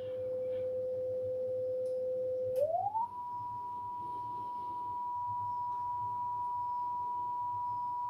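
Test tone played back from a test tape on an AKAI GX-625 reel-to-reel deck during tape-speed calibration: a steady pure tone at about 500 Hz that, about two and a half seconds in, glides up an octave to a steady tone at about 1 kHz.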